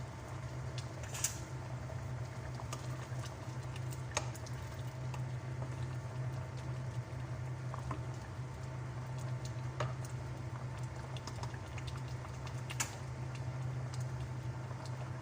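Pot of mung bean soup with squash simmering, bubbling softly with a few sharp ticks scattered through, over a steady low hum.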